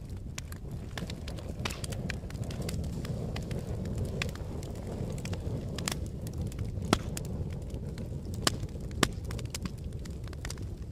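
Fire crackling: a steady low roar with frequent sharp crackles, and a few louder pops about seven, eight and a half and nine seconds in.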